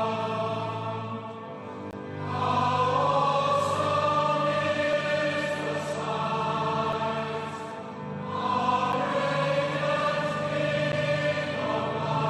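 Choir singing a slow sacred song in long, held chords. A new phrase swells in about two seconds in and again about eight seconds in.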